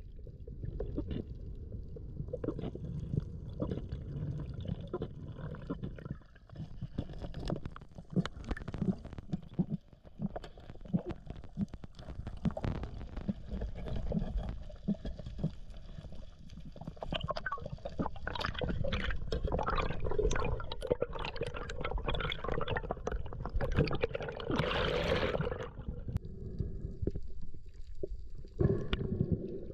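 Water sloshing and gurgling around an action camera in its waterproof housing, with scattered clicks and knocks. A louder rushing burst comes about 25 seconds in.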